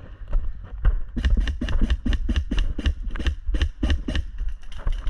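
Airsoft gun firing a rapid string of sharp shots, about six or seven a second, starting about a second in, over low thumps from movement and wind on the microphone.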